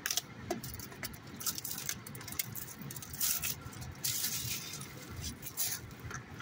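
Trading-card booster-pack wrappers, foil and clear plastic, crinkling and crackling as hands tear and handle them. The crackle comes in irregular spurts and is densest a little past the middle.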